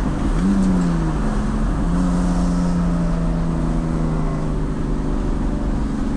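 Turbocharged BMW E46 engine under way: the revs rise and drop back in the first second, then it runs on at a steady, slowly falling pitch.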